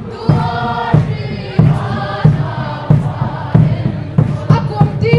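A group of voices singing together to a steady drum beat, about three beats every two seconds.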